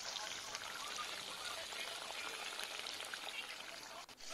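Pieces of fish shallow-frying in hot oil in a kadai: a steady sizzle with fine crackling. It dips out briefly near the end.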